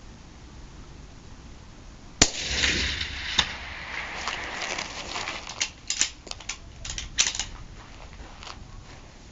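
A single suppressed rifle shot from a .308 Win precision rifle fitted with a Surefire FA762SS suppressor, about two seconds in, with a trailing echo for about a second, followed by a run of sharp clicks over the next few seconds.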